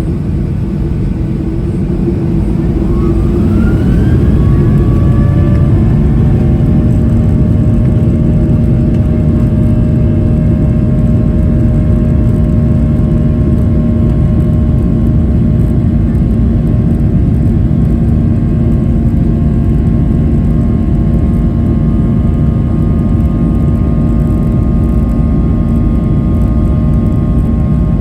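Boeing 737-800's CFM56-7B jet engines spooling up to takeoff thrust, heard from the cabin beside the engine. A whine rises in pitch and the sound grows louder over the first few seconds, then settles into a steady high whine over a loud low rumble during the takeoff roll.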